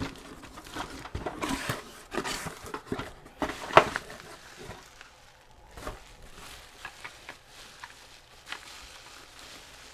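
Packaging being opened by hand to get at a boxed vacuum tube: irregular rustling and crinkling with small clicks and snaps, busiest in the first four seconds with one sharper snap, then thinning to sparse light ticks.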